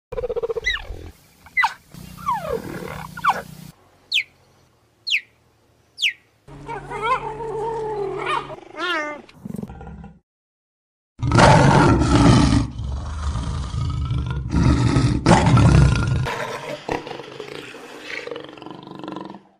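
Big cat calls edited one after another: a tiger's snarling growls and three brief high, falling squeals, then lions roaring loudly in a long series about halfway through, then a leopard's quieter growling calls near the end.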